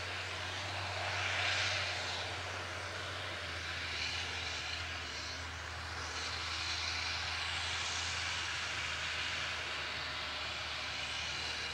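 New Holland tractor's diesel engine running steadily under load as it pulls a seedbed cultivator through dry soil, a low drone with a broad rushing noise over it that swells and fades as the tractor moves across the field.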